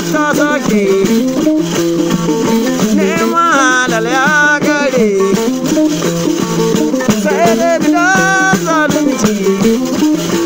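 Music of small plucked lutes over a steady shaking rattle. A voice sings wavering phrases, most prominently about three to five seconds in and again near eight seconds.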